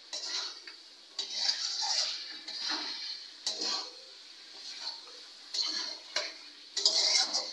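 A metal spoon scraping and clinking against a metal kadai in a series of uneven strokes as potatoes and meat are stirred and fried in masala, with a sizzle under the strokes.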